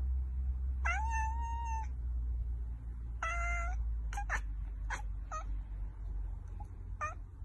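Long-haired cat meowing: one long meow about a second in, another just after three seconds, then a quick run of short meows and a last one near the end, over a steady low hum.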